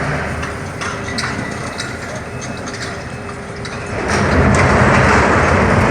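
Part of a power plant structure collapsing under demolition: a noisy crash of falling debris that grows suddenly louder about four seconds in and stays loud.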